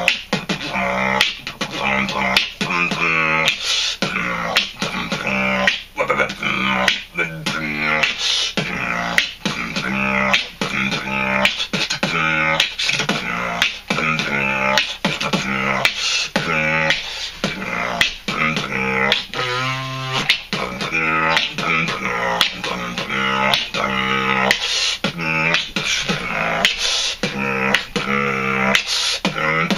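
A man beatboxing close to the microphone: a steady, fast beat of percussive mouth sounds, with hummed, pitched vocal notes woven in and one longer held note about twenty seconds in.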